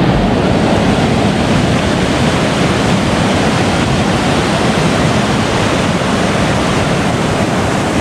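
River water pouring over a weir and churning into whitewater: a loud, steady rush.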